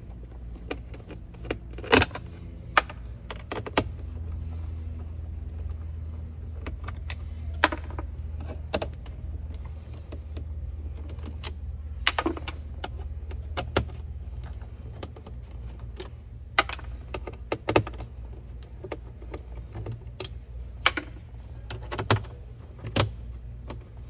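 Irregular sharp clicks and taps of a hand screwdriver working small Torx 20 trim screws out of a car's interior trim, with the loose screws clinking as they are dropped into the centre console. A low steady hum runs underneath.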